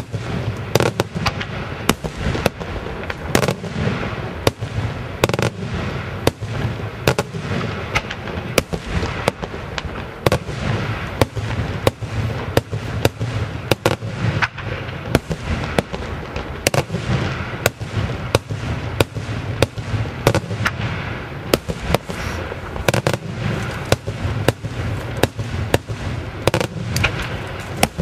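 Daytime fireworks display: aerial shells bursting in a rapid, irregular series of sharp bangs, several a second, over a steady low rumble.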